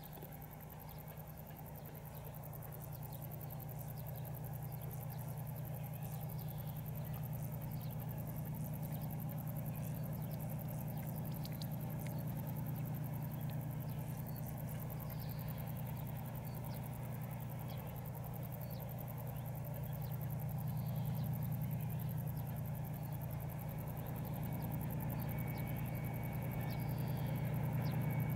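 Low, steady drone of a distant 2TE10 diesel locomotive's two-stroke engines, slowly growing louder as it approaches. Scattered short high chirps sound over it.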